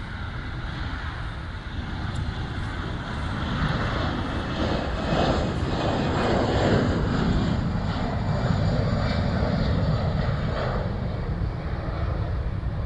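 Airliner engines running at high power as the plane takes off and climbs away; the noise builds to its loudest about halfway through and stays loud.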